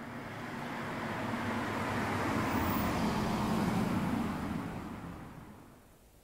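A car passing by, its engine and tyre noise growing louder to a peak about three to four seconds in, then fading away.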